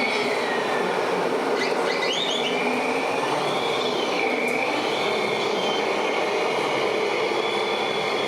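Whine of electric motors and gearboxes on radio-controlled model trucks and construction machines, several tones drifting up and down in pitch over a steady noisy hum, with a quick cluster of rising squeals about two seconds in.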